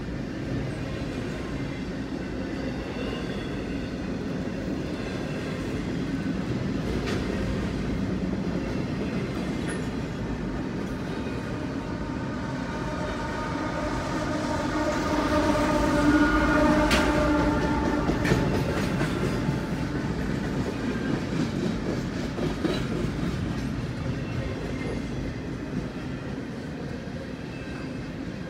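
A double-stack intermodal freight train's well cars rolling through a grade crossing, heard from inside a car: a steady rumble and clatter of wheels over the rails. About halfway through, a pitched, horn-like tone swells up for a few seconds and is the loudest part.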